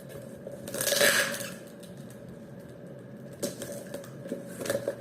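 Packaging being opened by hand: a loud rustle or tear about a second in, then a few small clicks and knocks as the contents are handled.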